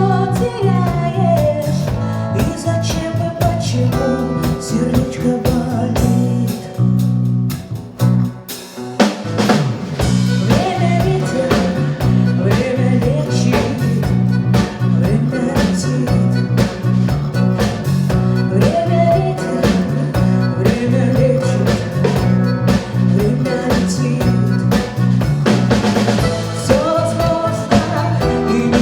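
Live band playing a song on guitar, bass guitar, drums and bayan, with a female voice singing. About eight seconds in the music briefly drops back, then comes back in with a drum hit.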